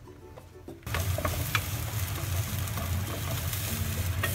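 Onion wedges sizzling as they are stir-fried in oil in a non-stick frying pan on a gas burner, the pan being shaken. The frying starts suddenly about a second in and then holds steady, with a few light clicks and knocks of the pan.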